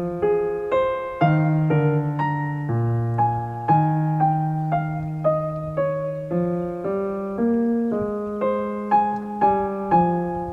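Soft background piano music: a slow melody of single struck notes, each ringing and fading, over held bass notes.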